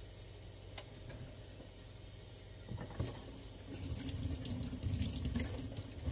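Water running, as from a tap into a sink, coming in about three seconds in and getting louder.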